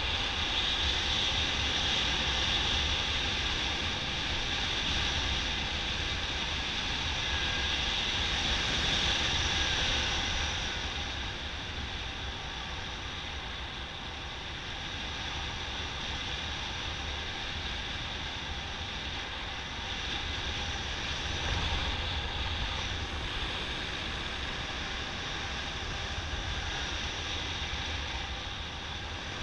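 Wind rushing over the microphone of a camera on a paraglider in flight: a steady noise, a little louder for about the first ten seconds, then settling slightly lower.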